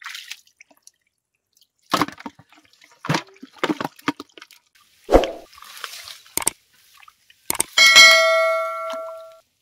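Several separate sharp knocks, then a metallic clang about eight seconds in that rings on and fades over about a second and a half.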